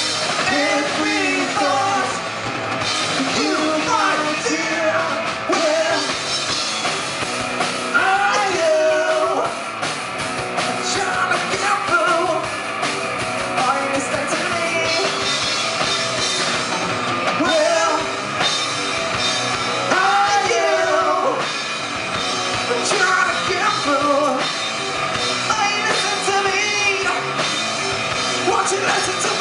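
Rock band playing live: electric guitar, bass guitar and drum kit, with a lead vocal singing over them.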